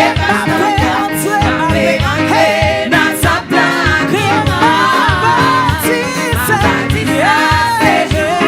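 Live gospel praise music: singing voices over a band with a steady drum beat.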